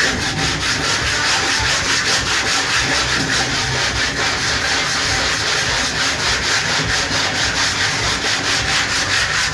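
Sandpaper being rubbed by hand over pallet wood in quick, regular back-and-forth strokes.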